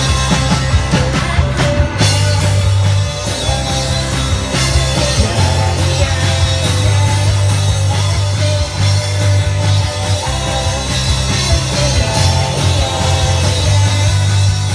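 Loud rock music with a heavy bass line and a steady drum beat.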